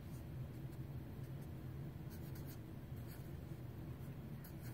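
A pen writing numbers on paper: faint short strokes, clustered about two seconds in and again near the end, over a low steady hum.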